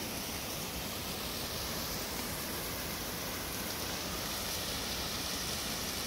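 Sherman Falls, mostly frozen over, with its water still running through and under the ice: a steady rushing hiss with no breaks.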